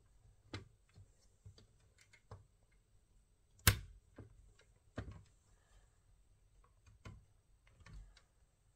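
Irregular small clicks and light knocks of hard objects being handled, about eight in all, with one sharp, louder click about three and a half seconds in.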